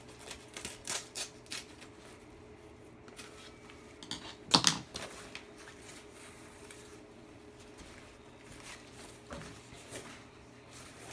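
Scissors snipping through a backpack's fabric lining: a few short cuts in the first two seconds and a louder one about four and a half seconds in, then fabric rustling as the cut-out compartment is pulled free.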